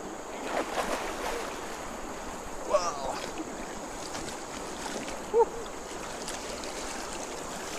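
Water rushing steadily, like a forest stream, with a steady high thin tone over it. A few short chirping calls come about three seconds in and again, louder, about five seconds in.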